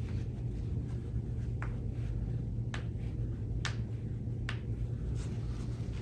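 Faint crinkles and light clicks from a paper towel gripped in hands against a bare heel, about five of them spaced roughly a second apart, over a steady low room hum.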